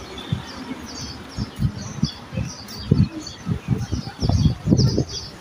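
Small birds chirping again and again in quick short notes, with irregular low thumps and bumps that grow louder through the second half.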